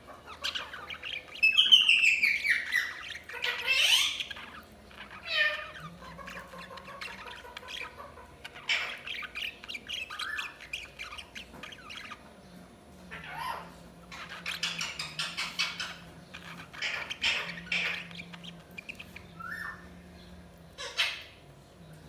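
Budgies chirping and squawking in many short calls throughout. The loudest stretch is a quick run of falling notes starting about a second and a half in.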